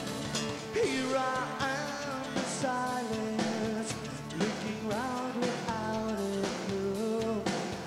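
Rock band playing live: sung vocals over electric guitar and drums.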